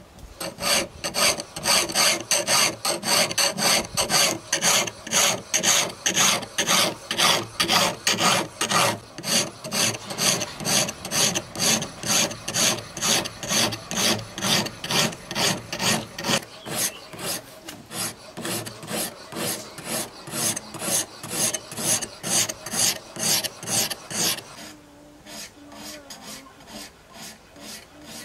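Coarse 80-grit sharpening stone on a Ruixin Pro guided-rod sharpener scraping back and forth along the edge of a Sleipner steel knife blade, about two strokes a second, grinding the cutting edge's bevel. The strokes turn much quieter near the end.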